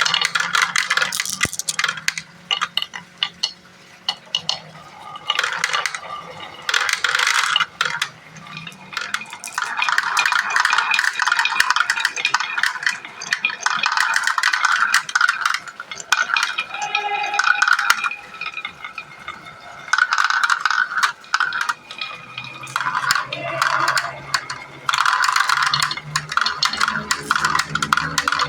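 Marbles rolling and clattering through a marble run's slopes and transparent plastic pipes: many sharp clicks and knocks, with runs of rolling noise that swell and fade every few seconds.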